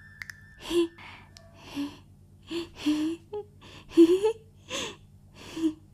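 A woman's voice in a run of short, sharp gasping breaths, some carrying a brief voiced cry, about ten in six seconds; the loudest comes about four seconds in.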